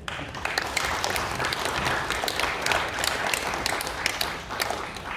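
Audience applauding, beginning suddenly and tapering off near the end.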